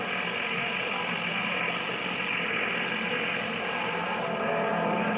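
CB radio receiver on channel 28 hissing with static and band noise between transmissions during DX skip, with a crackling texture and faint steady tones buried in it. A low steady tone comes in near the end.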